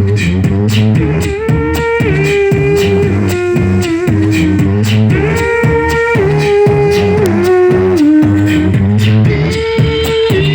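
Layered vocal beatbox loop: a steady beatbox drum pattern and a mouth bass line, with a newly added vocal melody phrase that steps down in pitch and repeats about every four seconds.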